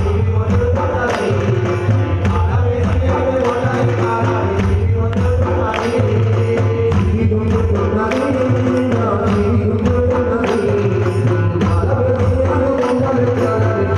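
Ayyappa devotional bhajan music: a melody over a steady low drone, with hand percussion and jingles keeping an even beat of about two strokes a second.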